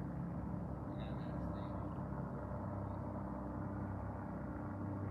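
Steady low drone of helicopters flying at a distance. A few faint high chirps sound about a second in.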